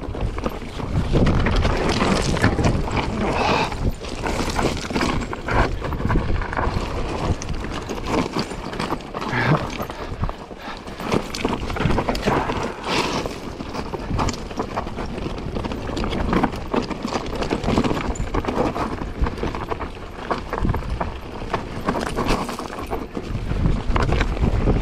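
Mountain bike clattering and rattling over rough, rocky trail on a fast descent, with a constant rush of tyre noise and a stream of irregular knocks.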